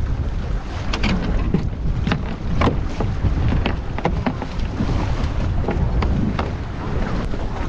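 Wind buffeting the microphone, with a steady low rumble and many short, irregular splashes of sea water.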